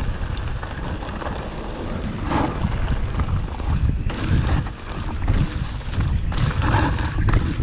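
Mountain bike rolling fast over a rough dirt and leaf-covered trail: a steady low rumble of tyres and wind on the mic, with irregular knocks and rattles as the bike goes over bumps, strongest about two seconds in and near the end.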